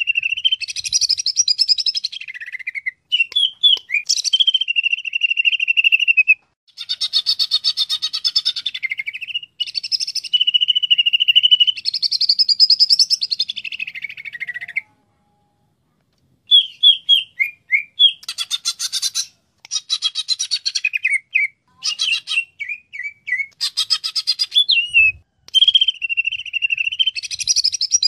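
Cucak ijo (green leafbird) singing a long, varied song of clear whistled notes and fast chattering trills. The song comes in phrases broken by short pauses, with a longer gap about halfway through.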